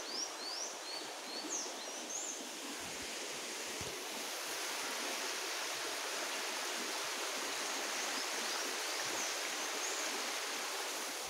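A river rushing steadily, a continuous hiss of flowing water that swells slightly partway through. A few short high chirps come in the first couple of seconds and again faintly near the end.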